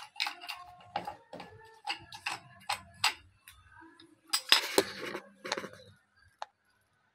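Screwdriver picking and scraping termite-hollowed wood out of a window frame: a run of irregular dry clicks and scrapes, with a louder burst of scraping about four and a half seconds in. Everything stops about six seconds in. The wood inside is hollowed by termites and crumbles easily.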